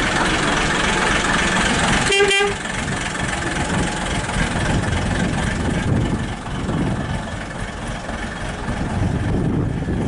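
Single-deck bus engine running as the bus drives slowly past and pulls away, with one short horn toot just after two seconds in. The engine sound becomes quieter and rougher once the bus has passed.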